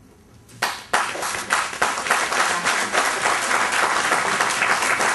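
Audience applause: after a brief hush, a couple of single claps, then many people clapping steadily from about a second in.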